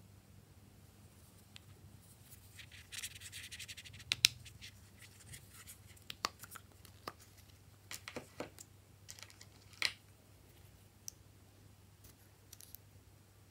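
Small plastic pens with character caps being handled: a short rustle, then a string of sharp plastic clicks as caps are pulled off and knocked together. The loudest click comes about four seconds in.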